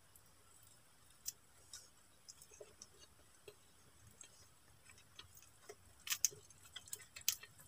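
Faint, scattered small clicks of eating by hand: chewing and picking at dried fish, then peeling a cooked shrimp, with a little cluster of clicks near the end.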